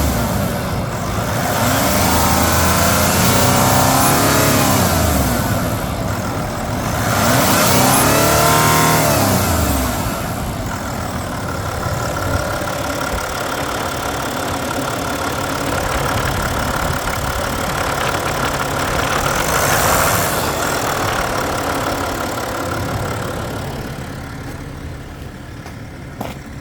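Range Rover Sport SDV6 3.0-litre twin-turbo V6 diesel engine revved twice, its pitch rising and falling each time, then settling to a steady idle with a steady high tone over it and a slight rise about twenty seconds in.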